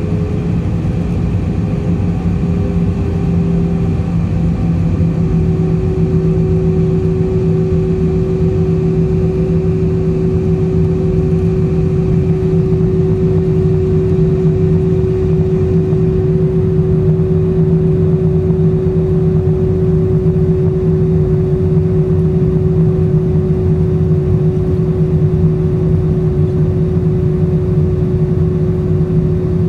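Steady jet engine and airflow noise inside the cabin of an Airbus A320 during its descent, with a constant low engine hum and a higher hum tone that drops slightly in pitch about four seconds in.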